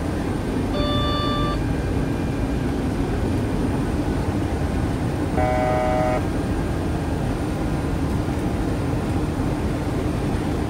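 Steady engine and airflow rumble on the flight deck of a C-17 Globemaster III in a descent, with two short electronic cockpit tones, about a second in and about five and a half seconds in, the second one lower and louder.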